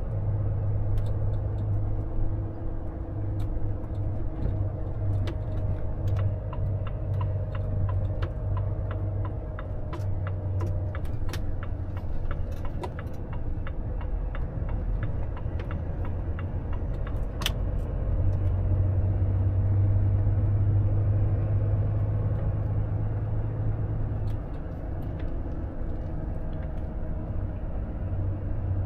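Volvo FH truck engine running with a steady low hum, with scattered light clicks and rattles over it and one sharper click about 17 seconds in.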